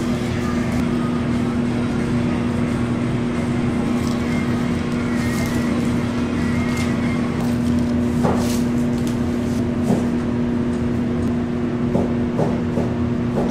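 Steady mechanical hum with a constant low drone and rushing noise, with a few light clicks and taps in the second half.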